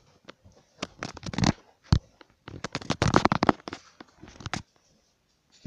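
Handling noise from a phone being moved about: irregular rustling, scraping and clicking, with a sharp knock about two seconds in, dying away near the end.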